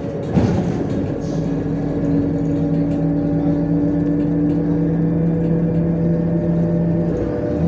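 Inside a MAZ-105 city bus under way: the engine and drivetrain run with a steady hum over road rumble, with a single knock about half a second in. The hum shifts slightly near the end.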